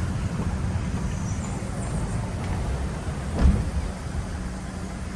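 A car driving, with a steady low road rumble and a single thump about three and a half seconds in.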